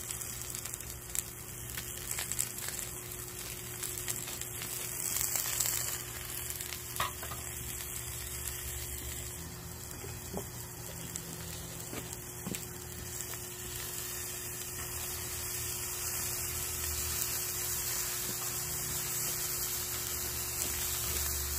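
Coiled gopchang (intestines) sizzling steadily as it fries in a hot frying pan, with a few sharp clicks of metal tongs turning it.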